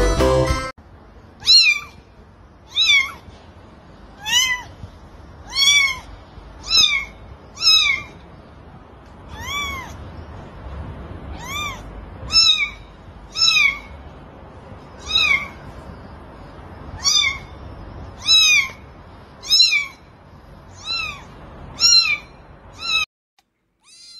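A kitten mewing over and over: short, high-pitched mews that rise and fall in pitch, roughly one a second, stopping abruptly near the end.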